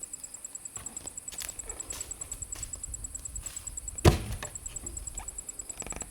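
A single loud, heavy knock about four seconds in, with a few lighter knocks around it, of wood being handled or struck. Behind it, forest insects chirp in a fast, even pulse of about eight beats a second.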